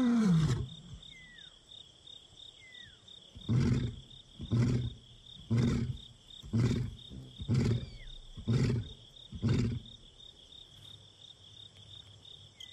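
Male lion roaring: a long moaning call ends just after the start, then after a pause comes a run of about seven short, deep grunts, roughly one a second. This is a contact roar calling for a missing companion. A steady insect trill runs underneath.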